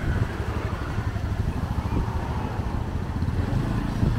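City street traffic: vehicle engines, among them motorcycles, running and passing in a steady rumble.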